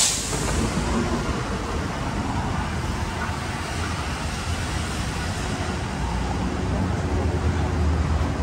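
City street traffic: vehicles driving past in a steady wash of road noise, with a heavier engine rumble swelling about six to eight seconds in.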